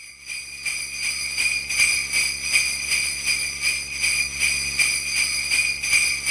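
Sleigh bells shaken in a steady rhythm, about three shakes a second.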